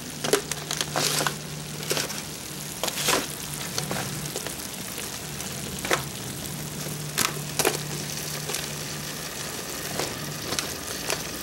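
Sliced zucchini, peppers, onions and mushrooms sizzling in a foil-lined pan on a hot grill as they cook down and release their moisture. A spatula stirs them, adding scattered scrapes and crinkles of the foil over a steady hiss.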